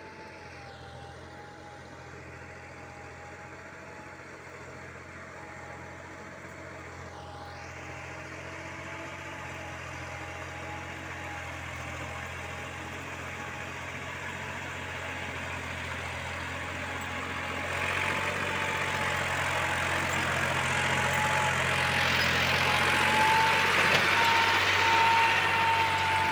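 Massey Ferguson 260 tractor's three-cylinder diesel engine running steadily under load, pulling a trolley heaped with soil, with a steady high whine above the engine note. It grows steadily louder as the tractor approaches and passes close by near the end.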